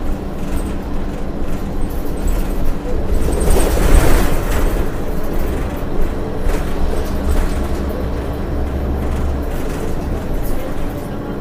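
Cabin sound of a 2006 Orion VII transit bus under way: its Cummins ISL inline-six diesel running steadily through the Allison automatic transmission, with road rumble and panel rattles. A louder noisy swell comes about four seconds in, and the deep engine drone eases off near the end.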